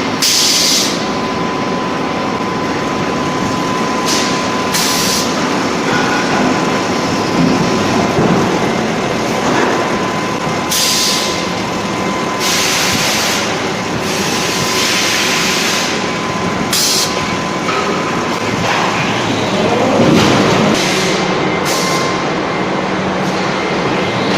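Hot-forging flange production line running, with mechanical presses and an electric screw press: a dense, steady machine noise with a constant whine, broken every few seconds by short bursts of hissing.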